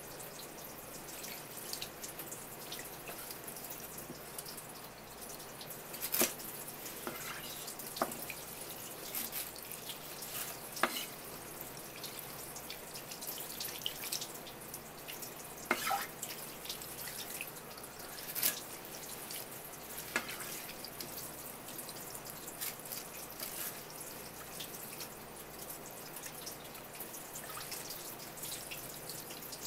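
A thin stream of tap water running and splattering onto a large sardine and a wooden cutting board as the fish is rinsed and handled, with a handful of short, sharp splashes or knocks now and then.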